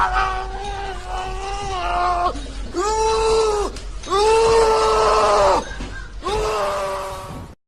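A voice wailing in four long, loud held cries, each lasting one to two seconds, with short breaks between them; the sound cuts off suddenly near the end.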